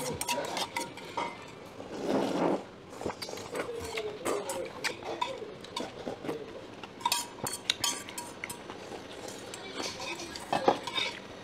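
Metal chopsticks clicking and scraping against stainless steel cold-noodle bowls during a meal, in scattered light clinks.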